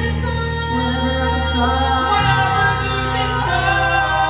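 Young cast voices singing long held notes together in a musical-theatre number, over sustained bass and keyboard accompaniment; the chord shifts about two seconds in and again near the end, as the song closes.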